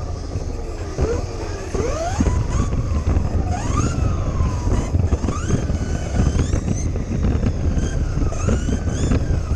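Kyosho Mini-Z RC car heard from an action camera mounted on it while driving: the small electric motor's whine rises and falls with the throttle, over a heavy rumble of wind and vibration and many small knocks and rattles.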